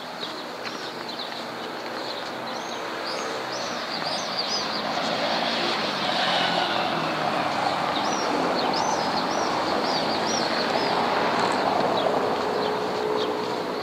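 Street ambience: the noise of a passing engine builds over a few seconds, holds, then eases off near the end, while birds give short high chirps throughout.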